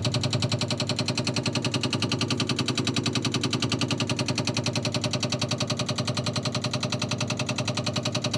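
Frigidaire refrigerator knocking from the freezer section: a fast, even run of knocks, several a second, going on without a break.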